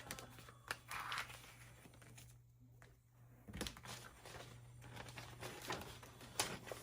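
Faint crinkling and rustling of an adhesive laminate sheet being handled as its backing is peeled back, with a few soft clicks.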